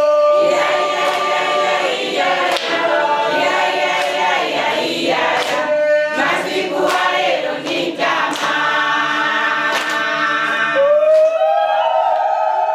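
A congregation of men and women singing together without instruments, closing on a long held note near the end.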